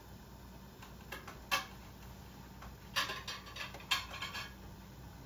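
A utensil knocking and scraping in a frying pan: a couple of separate clicks, then a quick run of clatter about three seconds in.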